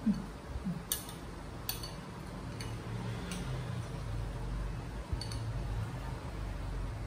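Metal spoon clicking against a ceramic bowl while eating, about five light clinks spread over the first five seconds.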